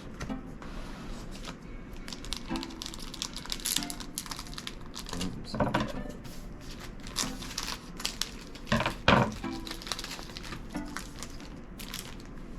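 Crinkling and rustling of a trading card pack's plastic wrapper and the cards being handled, in irregular bursts, with louder crinkles about six and nine seconds in.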